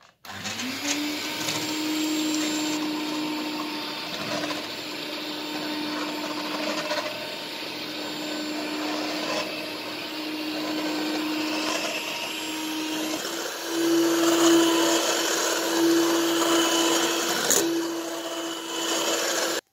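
Handheld electric mixer whipping egg whites to stiff peaks in a stainless steel bowl: a steady motor whine that spins up about a second in, with the beaters rattling in the bowl. It gets louder about two-thirds of the way through.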